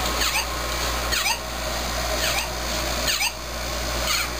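Electronic sound effect from a Mario Goomba sound plush: a swooping chirp repeated about once a second over a steady hiss, while the toy is tossed back and forth.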